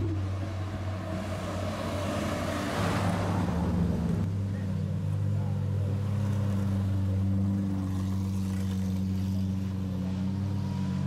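Lamborghini V12 supercars crawling past at close range in a slow line. The first few seconds hold a rushing engine-and-tyre noise from a passing car. From about four seconds in, a steady low engine hum with several even pitch lines, as the white Murciélago idles by at walking pace.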